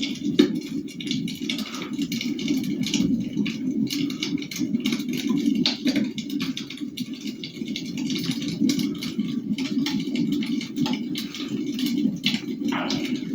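Wood fire burning in a fireplace: a steady low rush of flame with irregular crackles and pops throughout.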